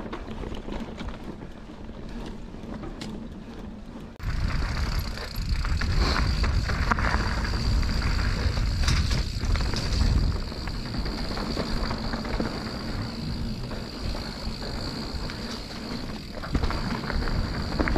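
Mountain bike rolling down a trail, heard through an action camera with wind rushing over its microphone. The bike clatters over the ground. About four seconds in the rushing jumps louder, as if from more speed, and a thin steady high buzz sets in alongside it.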